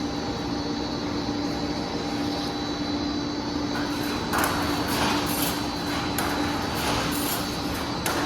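Steel wire mesh welding machine running: a steady electrical hum, joined about halfway through by a regular series of short, hissing strokes about twice a second as the machine cycles.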